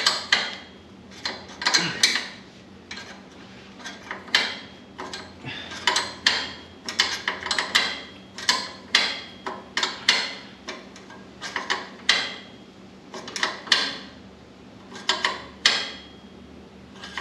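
Metal clinks and clicks from a wrench turning the nut on a homemade threaded-insert setting tool (a bent 1/4-inch bolt, a flat steel plate and a nut) as it draws a threaded nut insert tight into the steel shroud bracket. The clinks come in quick irregular clusters, one or two a second.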